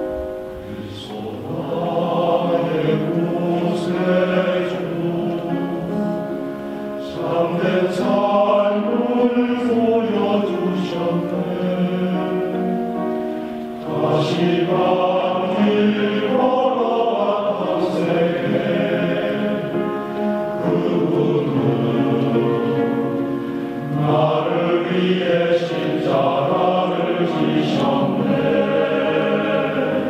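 A choir singing, in long phrases separated by brief breaths.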